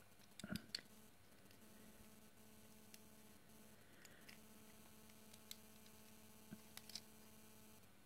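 Faint hum with a few small clicks and taps as a mouse circuit board and new microswitches are handled. A short cluster of clicks about half a second in is the loudest, followed by scattered fainter ticks.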